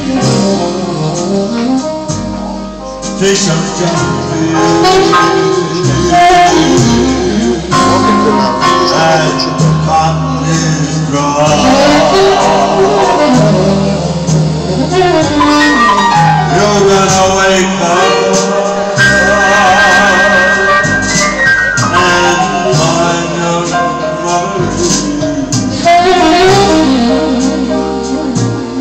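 Live saxophone playing a wavering melody with vibrato over an electronic keyboard's steady bass and chords.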